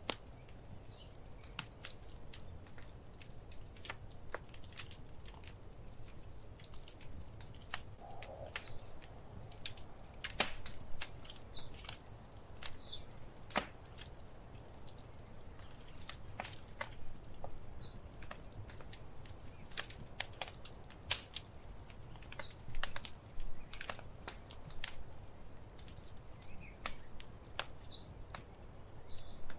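Wood fire in a fireplace crackling, with irregular sharp snaps and pops over a low steady rumble of burning.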